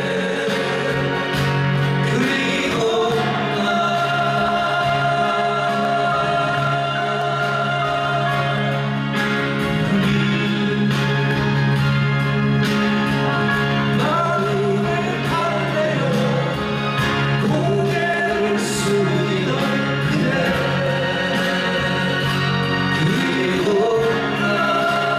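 Live acoustic folk song: two men singing together to two strummed acoustic guitars.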